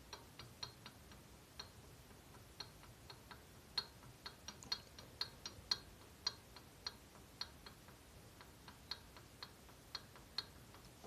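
Faint, irregular metallic clicks, about thirty in all, as the connecting rod of a 170F engine is rocked up and down on its crankpin. It knocks through about half a millimetre of big-end play that should not be there: wear at the crankpin, the cause of the engine's knock.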